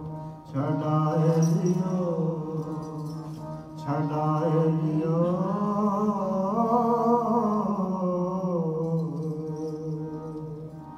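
Sikh kirtan: male voices singing a long, wavering melismatic phrase without clear words over a steady drone from two harmoniums. A new phrase starts about half a second in and again about four seconds in, and the music fades toward the end.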